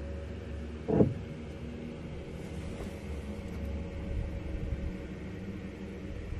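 Steady low rumble with a faint mechanical hum throughout, and one dull thump about a second in.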